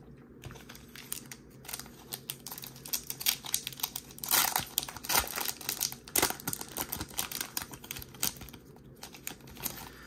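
Foil wrapper of a Topps baseball card pack crinkling and tearing as it is pulled open by hand: a rapid run of crackles, loudest around the middle.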